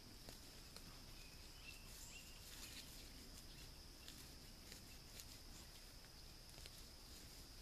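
Faint woodland ambience: insects keep up a steady high drone, with scattered small clicks and a couple of short chirps about two seconds in.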